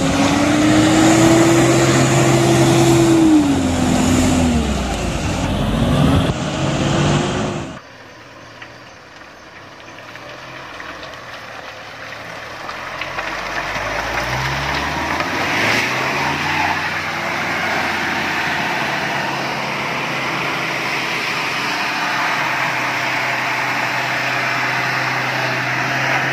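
Mitsubishi Triton pickup's engine revving up and down as it drives through deep mud. After a sudden cut about eight seconds in, an engine revs up once and then runs steadily.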